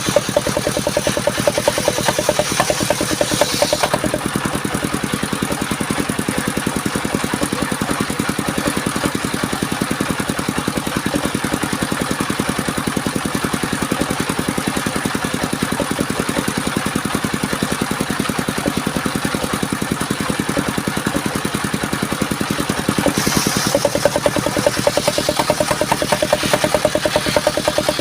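Engine of a portable circular-saw sawmill running steadily with a fast, even pulse. A harsher, higher sound rides over it for the first few seconds and again from about five seconds before the end.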